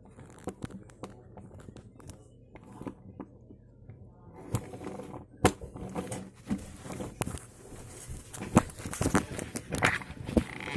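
A plastic toy car being handled close to the microphone: scattered clicks and knocks of plastic with rubbing and rustling between them, the knocks sharper and more frequent in the second half.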